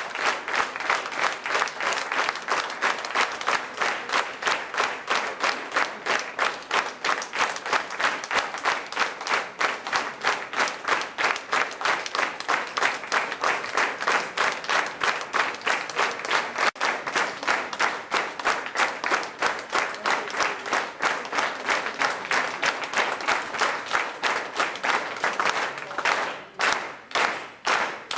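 Concert audience applauding in a steady rhythm, the claps falling together at about three a second. The clapping thins out briefly near the end before picking up again.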